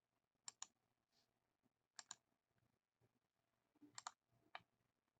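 Faint clicking at a computer: short sharp clicks, mostly in quick pairs, about every two seconds.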